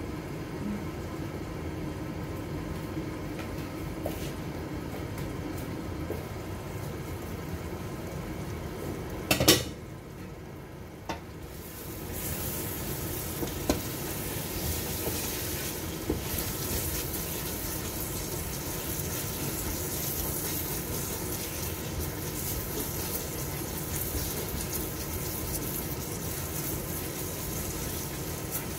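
Curry bubbling in a covered stainless steel pot, then a loud clatter about a third of the way in as the glass lid comes off. After that the curry sizzles and a wooden spoon stirs and scrapes the pot, with a few light knocks.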